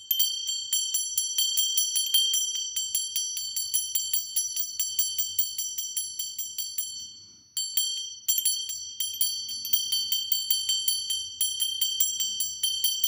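Small hand bell of the kind rung in temple worship, struck rapidly and steadily at about five strokes a second, each stroke ringing at a high pitch. The ringing dips and breaks off briefly twice a little past the middle, then resumes.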